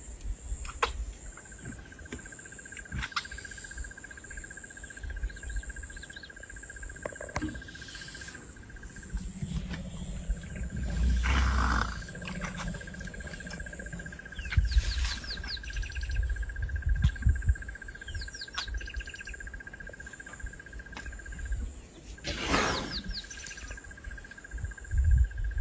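Outdoor ambience of insects and birds: a steady, high insect trill runs on with a short break about nine seconds in, under a fainter, higher hiss-like trill. Birds chirp in quick runs of short notes several times, and there are a few low rumbles and rustles.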